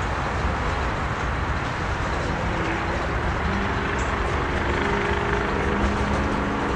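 Freight cars rolling past on the track, a tank car and then an open hopper: a steady rumble of steel wheels on rails. Faint steady tones join in about two and a half seconds in.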